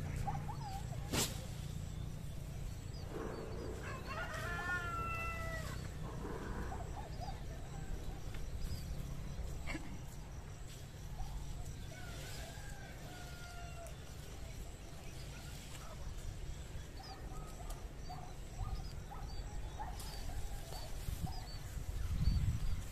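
A rooster crows a few seconds in, with a second crow around twelve seconds in. Small bird chirps and a steady low rumble run underneath.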